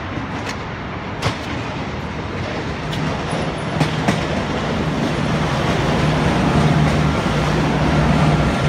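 V/Line VLocity diesel multiple unit passing close underneath, its diesel engines humming steadily and growing louder as it draws level, over rumbling wheel and rail noise. There are a few sharp clicks in the first four seconds.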